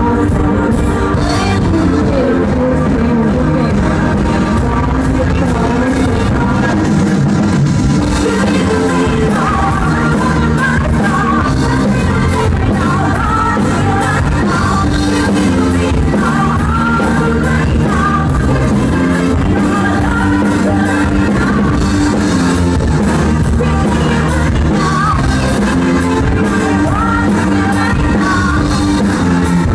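Pop song performed live, a woman singing lead over a band with a steady drum beat, loud and continuous.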